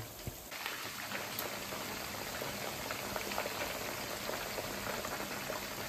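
Batter-coated chicken legs and thighs deep-frying in hot oil: a steady sizzle with dense small crackling pops.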